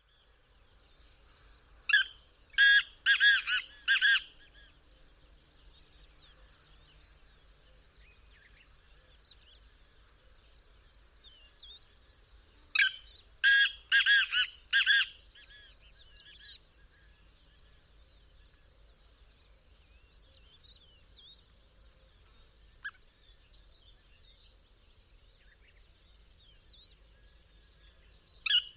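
Francolin calling: two loud bouts of four or five notes in quick succession, about ten seconds apart. Faint chirps of other birds come between them.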